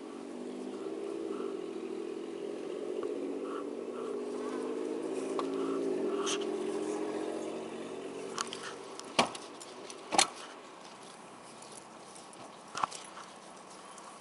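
A vehicle's engine hum swells and fades as it passes, its pitch rising slightly and then dropping. In the second half come three sharp knocks or clicks, the loudest sounds here.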